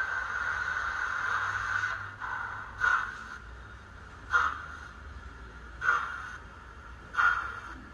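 Sound decoder in a model steam locomotive (Zimo MX645R, played through a small speaker in a Hornby OO gauge W1) hissing steam, then giving slow, separate exhaust chuffs about every one to one and a half seconds as the engine starts to move.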